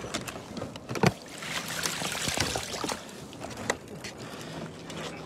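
Crab trap being hauled out of the water into a small boat: water splashing and streaming off it, with a sharp knock about a second in and a few clicks from the trap frame.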